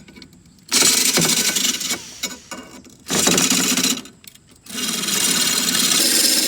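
Electric drill spinning a drill-mounted blade sharpener against a steel lawnmower blade, a harsh grinding whirr. It runs in short bursts: about a second in, again about three seconds in, then steadily from near the five-second mark.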